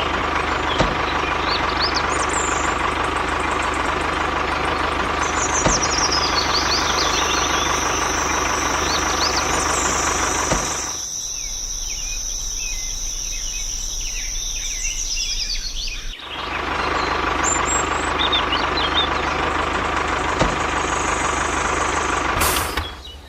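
An engine idling steadily, with birds chirping. It drops out for about five seconds midway while a steady high whine continues, then comes back and stops just before the end.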